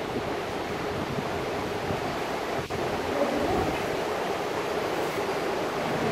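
Steady hubbub of a busy classroom: a blurred murmur of many children's voices and handling noise, with one sharp tap about two and a half seconds in.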